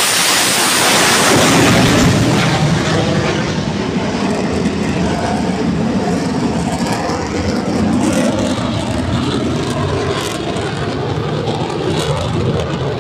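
Military jets passing low overhead: a loud roar whose high hiss fades within about two seconds, leaving a lower rumble that slowly dies away as they recede.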